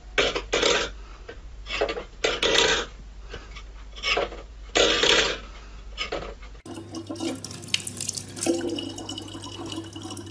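A stainless steel bowl scraping and clattering on a wooden floor under a cat's paw, in short loud bursts about one a second. After about six and a half seconds it gives way to a thin stream from a kitchen tap running steadily into a plastic bottle.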